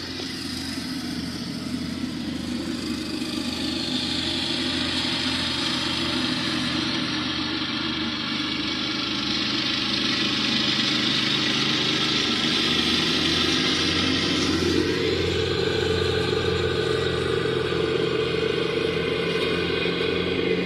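Lawnmower engine running steadily, gradually growing louder over the first several seconds, with a shift in its tone about fifteen seconds in.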